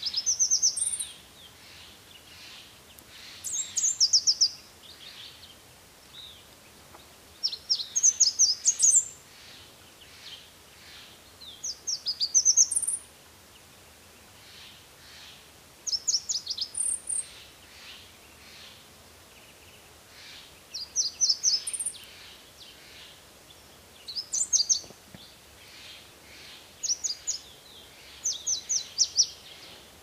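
Red warbler singing: short, high, rapid twittering phrases about a second long, repeated every three to four seconds, some ending on a higher note.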